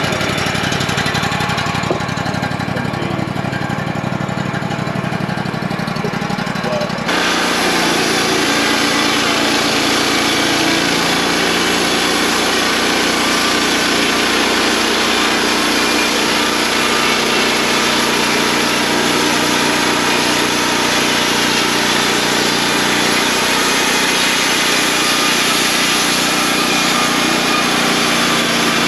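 Wood-Mizer LT35 portable band sawmill running, its engine droning steadily. About seven seconds in the sound changes abruptly and then holds steady.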